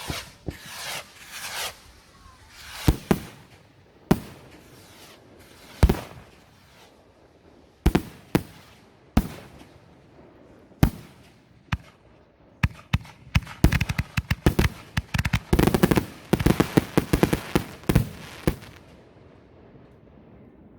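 Fireworks going off: single sharp bangs every second or two, then a rapid volley of many bangs and crackles for about six seconds, dying away near the end.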